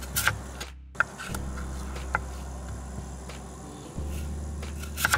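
Chef's knife slicing through a peeled raw potato on a wooden cutting board, with a few sharp knocks as the blade meets the board.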